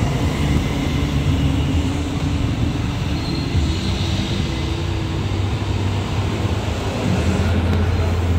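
Steady loud low rumble with a constant deep hum and a noisy wash above it, keeping an even level throughout.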